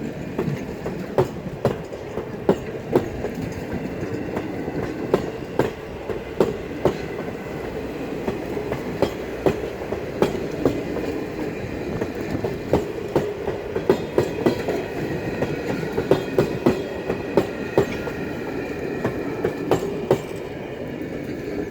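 Railroad passenger cars rolling past, steel wheels clicking over the rail joints about once or twice a second over a steady rumble.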